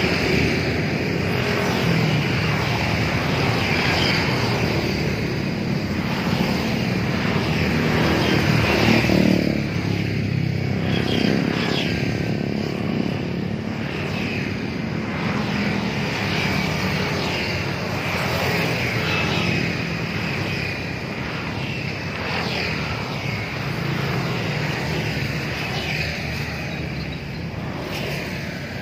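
A steady, fairly loud motor drone, like engine traffic or an aircraft, with no distinct separate events.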